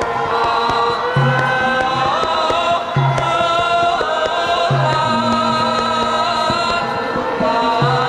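Javanese gamelan music with a chorus of voices singing, low notes recurring every second or two under sustained sung and melodic lines.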